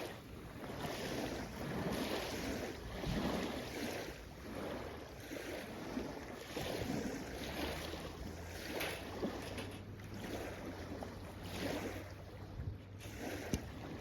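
Small waves washing in on the shore in repeated surges, with wind buffeting the microphone and a few sharp snaps.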